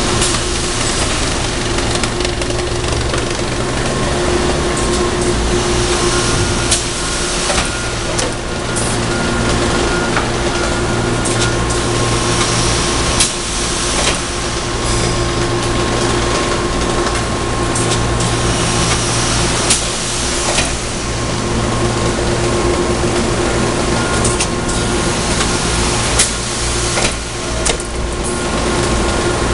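Brown thermoforming line with its inline shear running: a steady machine drone with a few constant tones, and sharp clicks and knocks now and then.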